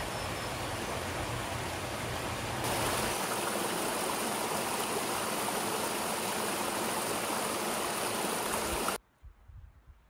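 Steady rush of flowing creek water, growing a little louder about three seconds in. It cuts off abruptly near the end, leaving only faint low bumps.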